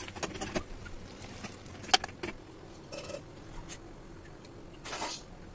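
Scattered clicks and clinks of a utensil against a steel bowl as noodles are stirred and mixed, with one sharper clink about two seconds in and a brief scraping rush near the end.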